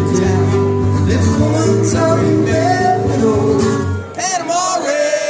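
Live country-bluegrass music: acoustic guitar strumming under a sung or played melody line. About four seconds in the low notes drop out and the melody carries on alone with a wavering vibrato.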